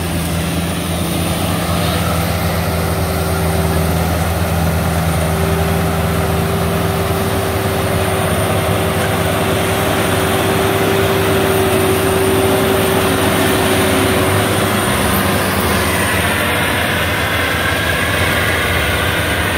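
Tracked rice combine harvester running in the field while cutting and threshing rice: a steady engine hum under a haze of machine noise, with a steady higher tone held from a few seconds in until about fourteen seconds.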